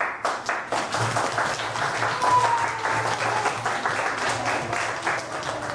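A group of people clapping in applause, with many quick, irregular claps.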